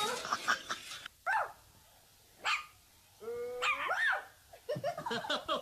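Small puppy barking in short, high-pitched yips with pauses between them, one longer drawn-out yelp after about three seconds, and a quick run of yips near the end.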